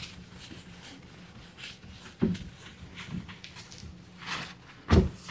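Scattered rustles and knocks from handling, with a thump about two seconds in and a louder thump near the end.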